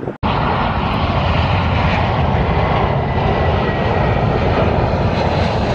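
Jet airliner on final approach passing low, its engines a loud steady rumble with a faint whine on top. The sound cuts in abruptly just after the start.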